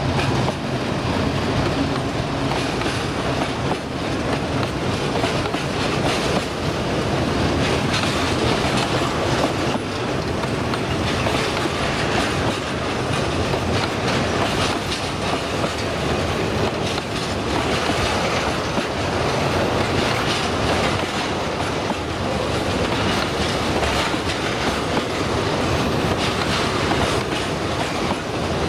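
Long freight train of tank wagons and hoppers rolling past, wheels clattering over the rail joints in a steady clickety-clack.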